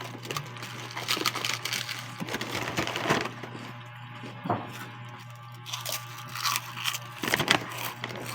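Someone eating close to the microphone: scattered chewing crunches and clicks at an irregular pace, over a steady low hum.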